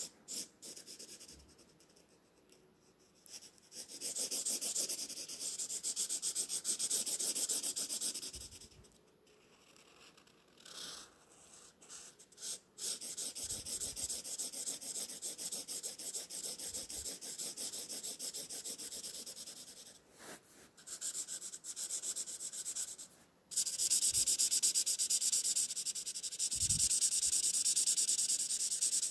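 Felt-tip marker scratching across paper in rapid back-and-forth colouring strokes. The strokes come in several stretches with short pauses between them, and are loudest in the last few seconds.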